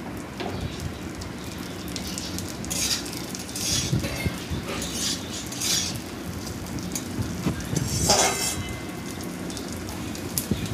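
Metal spatula scraping and clattering against a metal wok as diced coconut is stirred and fried in ghee, over a steady low sizzle. The scrapes come in an irregular string, the loudest about eight seconds in.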